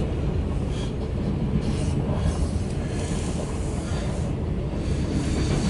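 Loaded autorack freight train rolling past, a steady low rumble of wheels on rail with a hiss above it.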